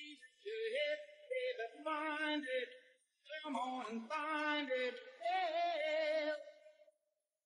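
Music with a voice singing, in two phrases with a short break about three seconds in; the sung notes waver in pitch.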